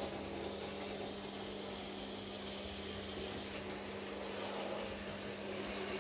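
Small electric motor and gearing of a Carson radio-controlled H0-scale postbus model running as it drives up and stops: a steady whirring rasp over a low hum. The higher part of the whir drops away about three and a half seconds in, and the hum goes on.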